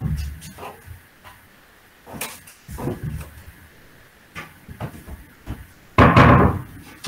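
Wooden wardrobe doors being pulled shut by someone inside the wardrobe: a run of light knocks and bumps, then a loud thud about six seconds in as the doors close.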